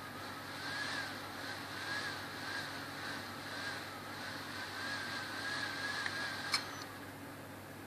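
HP 455 laptop's cooling fan and hard drive whirring erratically, the whine wavering up and down about once a second. A click comes about six and a half seconds in, after which the wavering whine drops away. This is the failed-startup symptom that a faulty motherboard caused.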